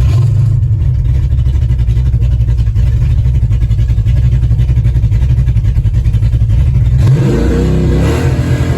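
Big-block Ford 521 cubic inch V8 of a drag-racing 1968 Ford Thunderbird running with a loud, pulsing low rumble, then revving up and down about seven seconds in.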